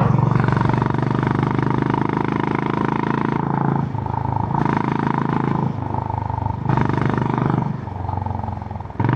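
Honda GB350's air-cooled single-cylinder engine through its stock exhaust, running under throttle while riding. Its note dips briefly about every two seconds.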